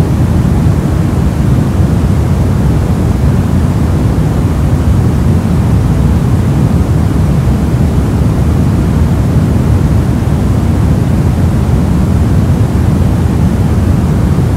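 Steady, soft noise with no breaks or changes, a deep even rush weighted toward the low end and thinning out in the highs.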